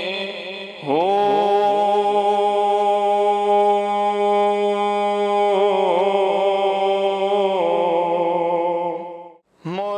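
A man's voice sings a Punjabi Sufi devotional kalam. It slides up into one long held note about a second in and ornaments it with wavering turns, breaks off briefly near the end, then starts a new phrase.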